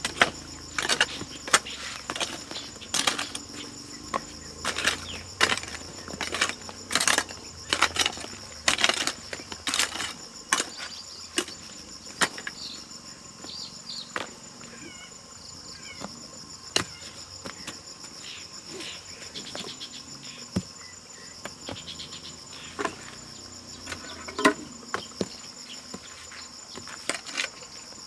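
Steady high-pitched insect chorus, like crickets, running under frequent irregular knocks and clatter from handling or working something. The knocks come thick in the first half and thin out after about 12 seconds.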